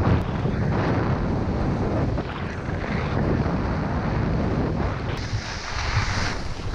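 Wind buffeting a GoPro Hero 5's microphone during a fast ski descent, a steady low rumble, with the hiss of skis running over groomed snow. From about five seconds in a brighter hiss rises as the skis skid to slow down near the lift.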